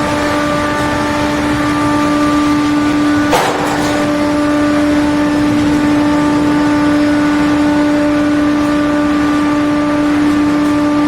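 SB-480-4v four-shaft multi-saw log-sawing machine running with a steady, even hum-whine. A short noisy burst about three and a half seconds in briefly breaks the tone.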